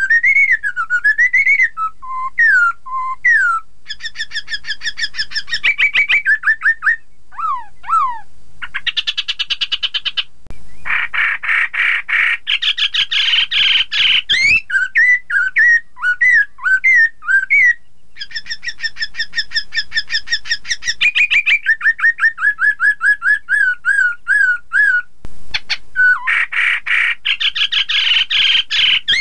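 Black-throated laughingthrush (poksay Hongkong) singing loudly and without pause: whistled notes that glide up and down, long runs of rapidly repeated notes, and dense fast trilling chatter around the middle and again near the end.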